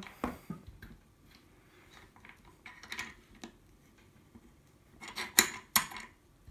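Light metallic clicks and scrapes as a lock and metal picking tools are handled and repositioned, with a louder clatter of several knocks about five seconds in.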